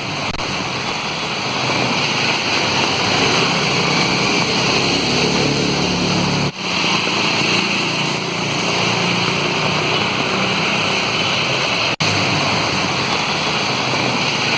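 Steady rushing noise of heavy rain and flowing floodwater, with a faint low hum partway through. The sound breaks off abruptly twice.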